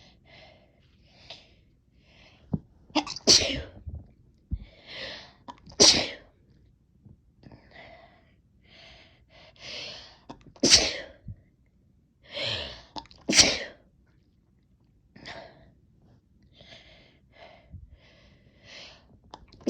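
A person sneezing hard, set off by chhinkni sneezing powder: four loud sneezes, each after a sharp drawn-in breath, with soft breaths and sniffs between and another sneeze starting right at the end.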